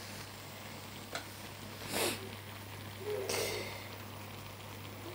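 Faint cooking handling sounds over a steady low hum: a wooden spatula scraping through rice in a non-stick frying pan, then a short rustle as chopped bell peppers are tipped in from a bowl.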